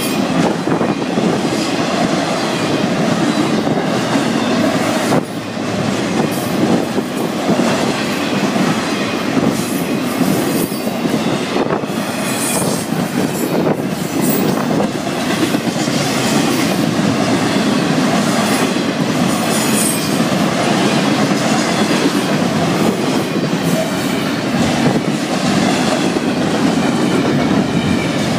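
Intermodal freight cars of a Florida East Coast Railway train rolling past at speed: a steady, loud rumble of steel wheels on rail, with rhythmic clicks as the wheels cross rail joints and a faint high wheel squeal at times.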